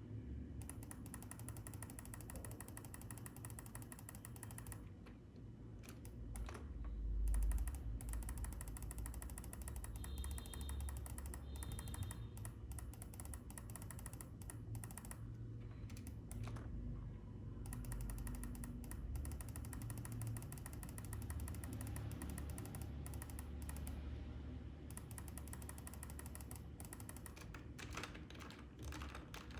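Computer keyboard keys clicking irregularly over a low steady hum.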